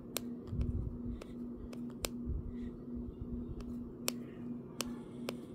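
Handling noise from a tablet in a rubber case: irregular sharp clicks and taps with low rumbles as it is held and its touchscreen scrolled. A steady low hum runs underneath.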